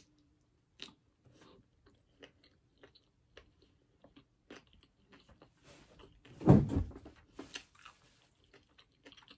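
Close-miked chewing of a bite of fried chicken sandwich: soft, wet mouth clicks and smacks, a few a second. About six and a half seconds in comes one much louder muffled thump with a short rustle around it.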